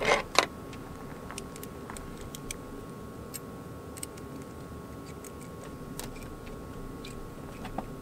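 Small metal wiring hardware handled by hand under a car hood: two sharp clicks at the start, then scattered faint ticks and clinks over a steady low hum.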